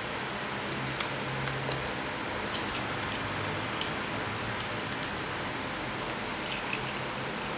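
Light scattered clicks and crackles from hands handling a self-adhesive hook-and-loop strip and a small die-cast toy car, over a steady background hiss.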